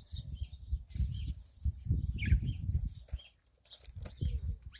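Birds chirping in many short, high, falling chirps, over irregular low rumbling and bumps.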